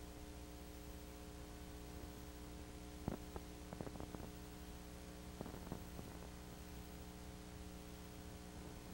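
Steady electrical mains hum with a faint hiss, with no motorcycle engines heard. A cluster of small clicks comes about three seconds in and another about five and a half seconds in.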